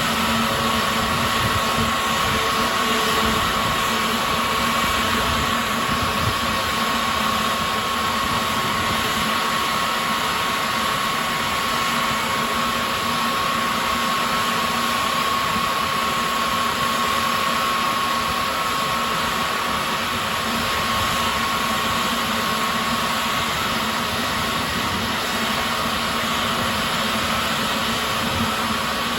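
Airbus A321neo's Pratt & Whitney geared turbofan engines running steadily: a loud even rush with a steady high whine over it.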